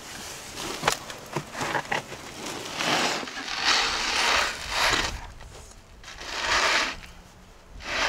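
A tray carrying a clay-encased fish being dragged out across the floor of a brick wood-fired oven: a few knocks, then several long scraping pulls.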